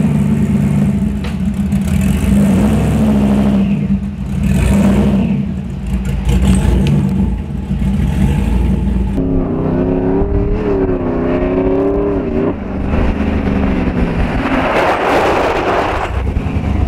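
Toyota Land Cruiser FZJ80's engine idling steadily, then about nine seconds in its pitch rises and falls as it is revved or driven, followed near the end by a rushing noise of the truck moving on a dirt road.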